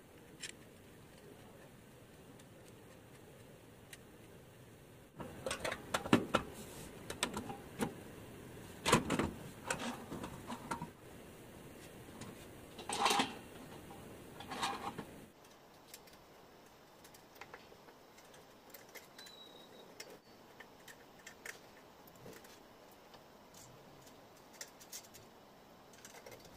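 Metal parts of a homemade angle-grinder slide guide being handled and fitted by hand: a run of irregular clicks and knocks from about five seconds in, then only faint scattered ticks near the end. No grinder is running.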